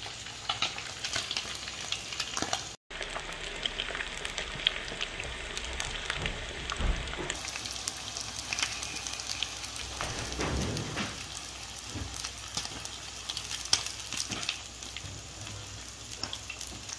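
Pieces of fish shallow-frying in hot oil in a skillet: a steady sizzle with many small crackling pops, with a brief break about three seconds in.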